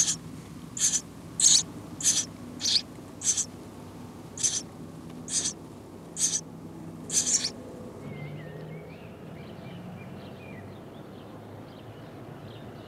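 House sparrow nestlings begging in the nest: about ten short, high, hissing calls, one every half second or so. After about eight seconds they give way to fainter, wavering chirps.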